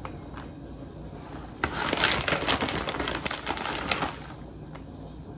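Plastic bag of shredded cheese crinkling as it is handled and tipped, a dense crackling rustle lasting about two and a half seconds from a second or so in, with only a few faint clicks around it.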